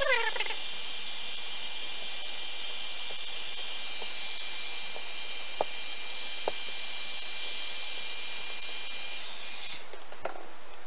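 Heat gun running with a steady high hiss and whine, cutting off abruptly near the end. A brief falling squeal comes at the very start, and two light clicks fall in the middle.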